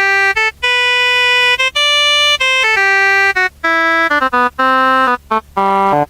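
Casio CTK-245 portable keyboard playing a simple melody of single held notes on one of its sustained built-in tones. The notes grow shorter and quicker in the second half.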